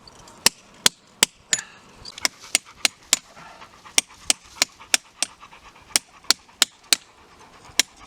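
Mallet striking a hand-held hammer drill to drill a bolt hole into rock by hand: sharp, ringing strikes at about three a second, in runs of four or five with short pauses between.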